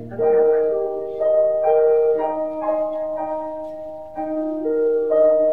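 Slow instrumental music: held, overlapping notes moving from chord to chord about once a second, with no singing.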